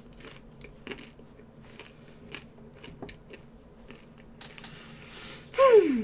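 A person chewing and biting food, with soft scattered clicks and smacks of the mouth. Near the end, a short, loud pitched sound slides quickly down in pitch.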